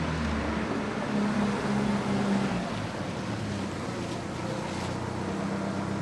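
An engine running under a steady rushing noise, with a low hum that shifts slightly in pitch; it starts abruptly.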